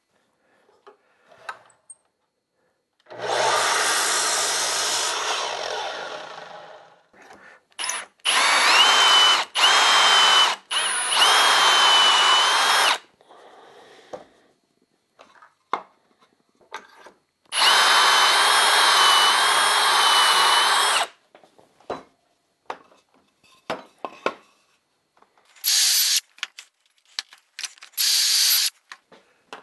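Milwaukee cordless drill boring pocket holes through a pocket-hole jig into red cedar, in several runs of one to four seconds with a steady high whine. Before the drilling, a single cut from a sliding miter saw that fades out.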